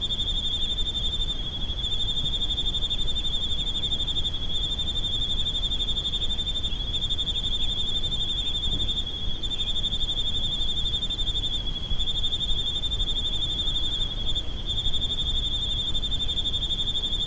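Night chorus of trilling animals: one continuous high-pitched trill, with overlapping callers, that pauses briefly now and then. A low rumble of noise runs underneath.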